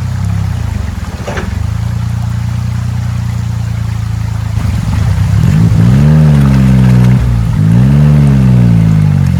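Suzuki Jimny JA11's small turbocharged three-cylinder engine running steadily, then revved up and back down twice, about six and eight seconds in.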